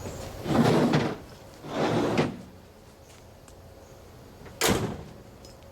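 A pickup tailgate being handled and shut: two short scraping, rattling sounds, then one sharp slam as it latches, near the end.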